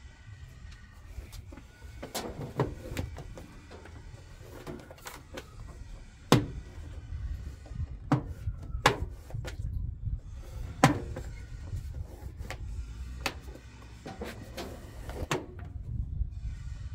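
Sharp plastic clicks and knocks as a front-loading washing machine's detergent drawer and control-panel housing are handled and pushed into place, the loudest few knocks a second or two apart, over a low rumble.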